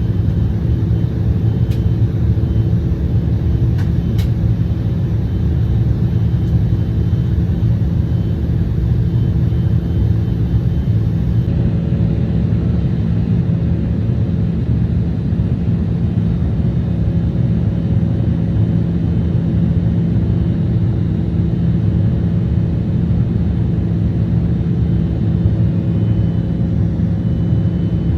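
Steady cabin rumble of an Embraer 175 airliner with its engines running: a constant low drone with a few steady hums over it.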